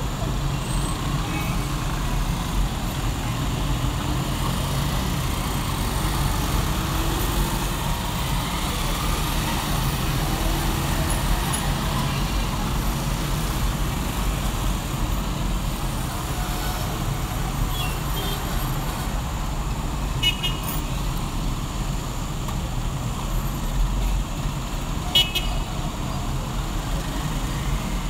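Congested city traffic heard from inside a car: a steady low hum of idling engines, with a few short car-horn toots in the second half, the last one the loudest.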